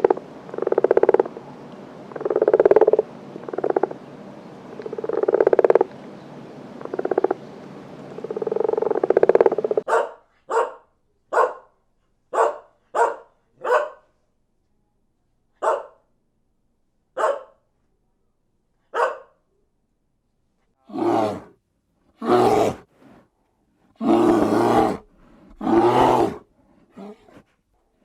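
A series of animal calls. For about ten seconds, repeated calls come every second or so over a steady background hiss. Then come short, sharp calls separated by silence, and near the end several longer, deeper calls.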